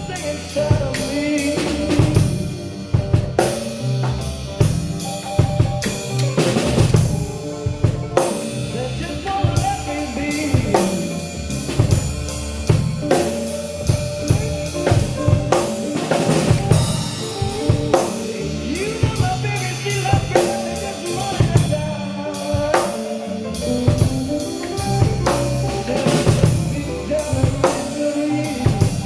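A band playing an instrumental passage of a blues-rock song, with a drum kit prominent: a steady run of sharp drum hits over held pitched instrument notes.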